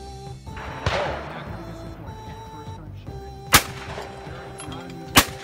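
Three shotgun shots at clay targets, over background music. The first comes about a second in and is quieter, with a longer tail. The last two are louder and sharper, about a second and a half apart.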